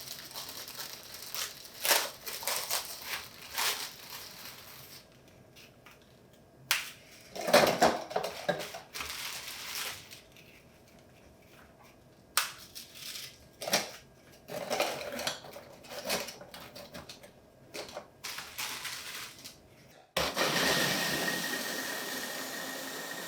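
Graham crackers being broken and dropped into a food processor bowl, with irregular crunching and clattering. About 20 seconds in, the food processor switches on and runs for about three seconds, grinding them into crumbs.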